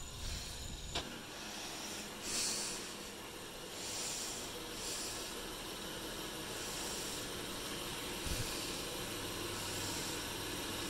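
Honda Ridgeline's V6 engine running at a low, idle-like speed as the pickup creeps forward, heard as a steady hiss with a low hum that grows a little stronger near the end.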